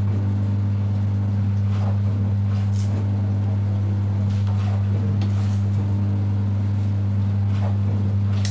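A steady low electrical hum, with a few faint clicks of a knife cutting food on a plastic chopping board.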